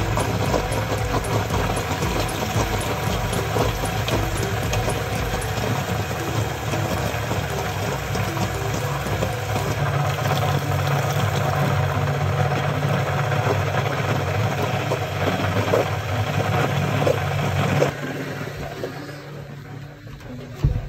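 Electric bilge pumps running while pumping water out of a boat's bilge, a loud steady hum with rattling. The hum shifts higher about ten seconds in, and the noise drops away sharply near the end.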